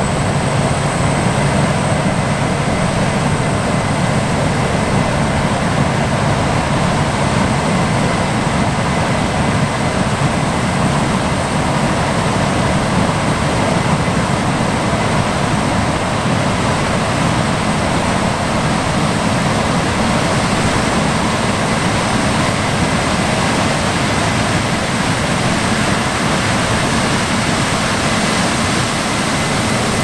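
Case IH 9250 Axial-Flow combines running steadily while harvesting corn with a 16-row corn head, the nearest one unloading on the go into a grain cart pulled by a tracked tractor. Loud, even machinery noise with a thin high whine over it.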